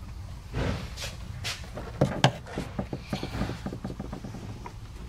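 Hands working a rubber air intake snorkel and its hose clamp into place: the rubber duct rubs and creaks under a run of small clicks and rattles. Two sharper knocks come about two seconds in.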